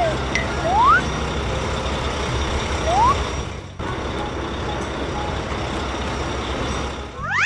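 Cartoon truck engine sound effect: a steady, rumbling running noise, with three short sliding tones, one falling at the start and two rising, about one and three seconds in.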